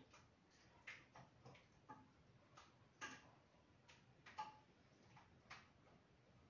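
Faint, irregular clicks and light knocks, about nine of them scattered over a few seconds, from kitchen cookware and utensils being handled.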